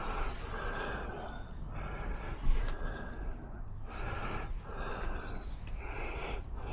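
A person breathing heavily close to the microphone, in long breaths of about a second each, with a short thump about two and a half seconds in.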